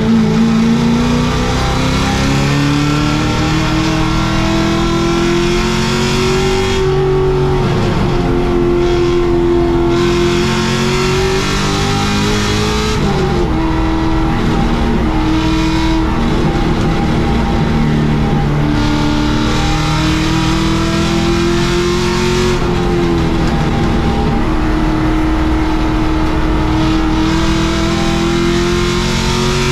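Holden VY Commodore race car's engine under hard acceleration, heard from inside the cabin: its pitch climbs steadily, dropping suddenly at upshifts about halfway and again about three-quarters of the way through, then climbing again, over constant road and wind noise.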